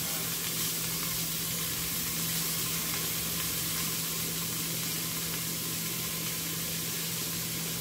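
Diced mirepoix of onion and carrot sizzling steadily in hot oil in a stock pot, with a steady low hum underneath.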